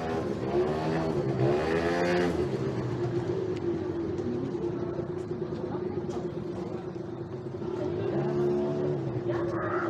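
A motor vehicle's engine revving up and down in pitch, then running at a steady pitch.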